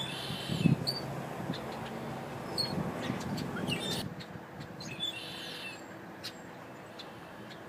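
Car windshield wiper blades squeaking across wet glass: a short high squeak at the start and another about five seconds in. A low rumble under it fades after about four seconds.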